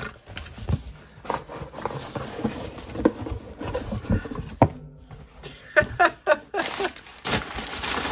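A cardboard box being tipped and emptied: knife pouches with knives inside fall and tumble onto a table, giving an irregular run of knocks and thuds among rustling of cardboard and nylon fabric. The rustling is loudest near the end, as the pouches slide out.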